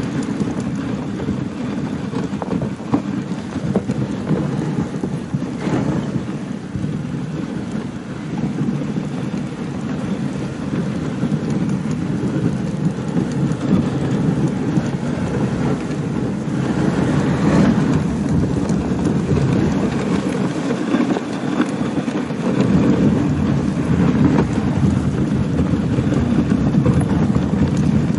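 Dog sled runners gliding and scraping over packed snow, a steady noisy rumble that grows a little louder near the end.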